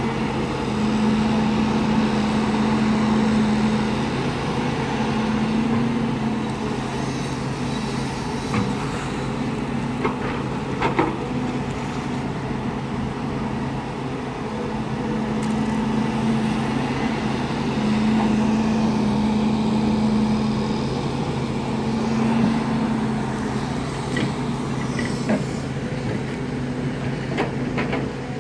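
Volvo crawler excavator's diesel engine running steadily under hydraulic load while digging mud, its note swelling and easing as the arm works. A few short knocks come in the middle.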